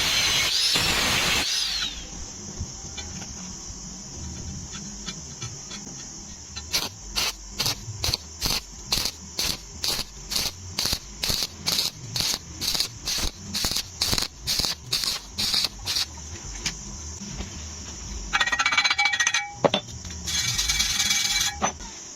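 Stick welding arc crackling, first as a continuous hiss, then broken into short even bursts about twice a second as the rod is whipped and paused across a gapped joint, with two longer stretches of arc near the end. A steady high whine runs underneath.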